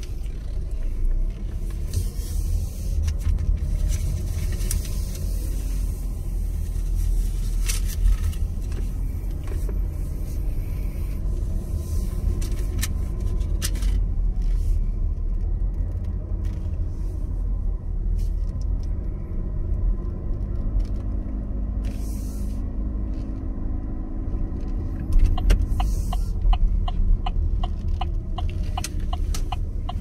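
Car engine and road rumble heard from inside the cabin while driving slowly, with a few scattered clicks. About 25 seconds in, the turn signal starts ticking steadily, about three ticks a second.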